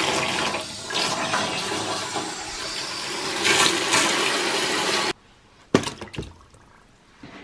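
High-pressure air hissing out of a hose fitting in a loud, steady rush that cuts off abruptly about five seconds in. A couple of short knocks on the fitting follow.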